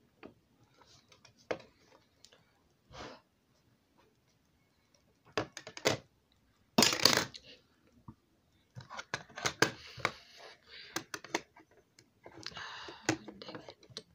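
Close-up handling noises of makeup being applied: scattered clicks and taps of brushes and makeup containers, with rustling of clothing brushing the phone's microphone and one louder short rush of noise about seven seconds in.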